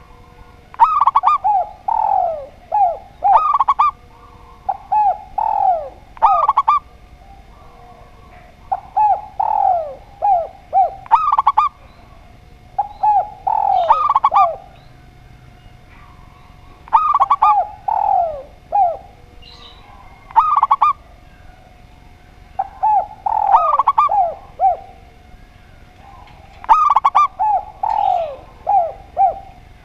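Caged dove cooing in repeated song phrases, about one every four seconds. Each phrase is a quick run of several coos that drop in pitch.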